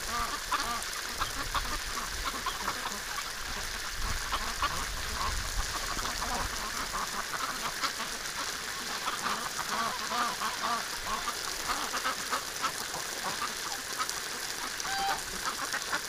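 A flock of domestic ducks, mostly white Pekins, quacking continually, many calls overlapping, over the steady hiss of a garden hose spraying water among them.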